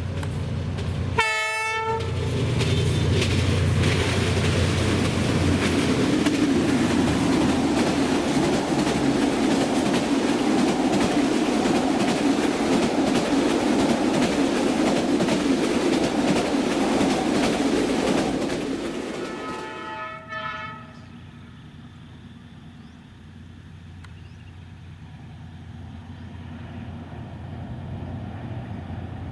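Diesel-hauled passenger train sounding one short horn blast about a second in, then passing with a loud, steady rumble of engine and wheels on the rails. A second, fainter horn blast comes as it draws away near the two-thirds mark, after which the noise drops off sharply.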